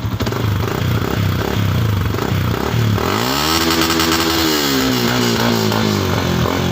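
Yamaha Sniper 150's single-cylinder four-stroke engine breathing through a hollowed-out stock muffler (kalkal pipe), idling with a loud pulsing exhaust. About three seconds in it is revved once, the pitch rising and then falling back to idle.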